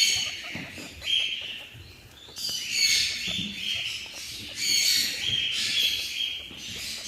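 Small birds chirping, short high calls repeating about once a second.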